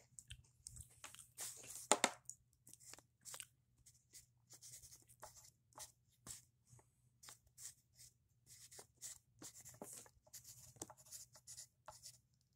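Faint handling noise of a phone camera being moved about: scattered soft rustles and clicks, with one louder knock about two seconds in.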